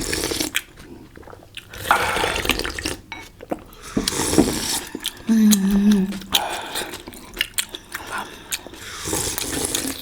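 Wet, close-up eating sounds of momo dumplings in jhol soup: irregular slurps, smacks and chewing clicks, with a short low hum of a voice about five and a half seconds in.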